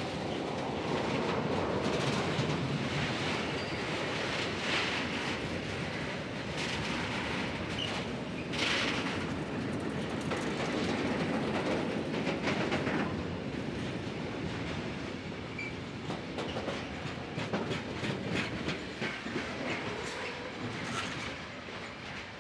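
Freight train rolling past, its wagon wheels clacking over the rail joints. The rumble eases in the second half, with sharper clicks near the end.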